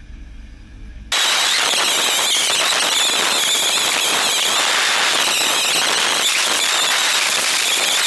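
Low wind rumble on the microphone, then about a second in a sudden switch to a loud, dense crackling hiss with a steady high whine: the DJI Phantom 2's propellers and the wind as picked up by its onboard GoPro, fast-forwarded many times over.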